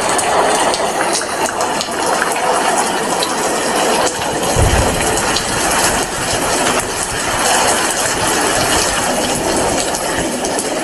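Rain falling steadily, a dense hiss full of individual drop ticks, with a brief low thump about four and a half seconds in.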